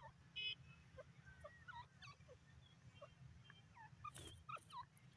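Grey francolins giving soft, scattered chirps and short squeaky notes, most of them falling in pitch, with a louder call at about four seconds.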